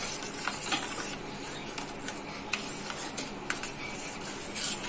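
A metal spoon stirring milk and kharwas powder in a steel tin, clinking lightly and irregularly against the sides as the lumps are worked out.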